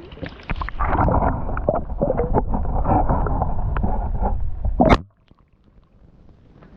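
Water churning and gurgling close to the microphone for several seconds, then a single sharp crack about five seconds in: a Glock pistol fired underwater. The sound drops away suddenly after the shot.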